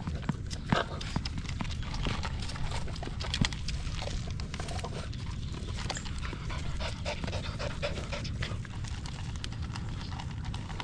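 Puppies close to the microphone panting and licking, with many quick wet clicks.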